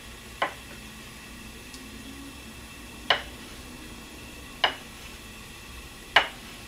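Four sharp clicks in a kitchen, a second or two apart, each ringing briefly.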